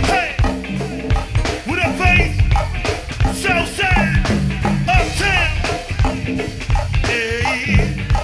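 Live band music at full volume: a steady bass line and drum kit with a wavering melody line over the top.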